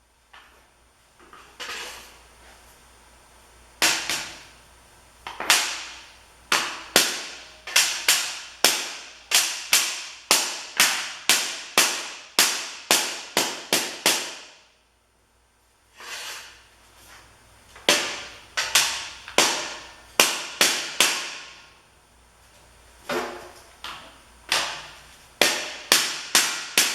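Steel rings made of half-inch square bar are being tapped to seat their half-lap notched joints. The result is a run of sharp metallic strikes, roughly two a second, each ringing briefly, in several bursts with short pauses between them.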